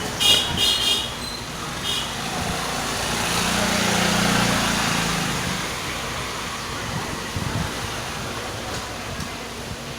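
Road traffic noise: a vehicle passes, swelling to a peak about four seconds in and fading, with a couple of short horn toots near the start.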